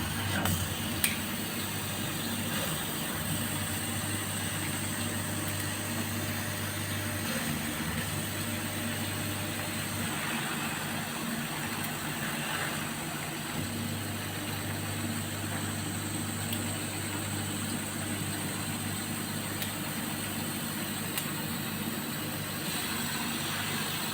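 CO2 laser cutting machine running: a steady whir, with a low hum that cuts in and out every few seconds.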